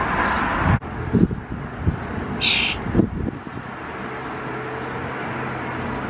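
A single short, harsh chirp from a fledgling starling about two and a half seconds in, over steady outdoor background noise with a few soft knocks.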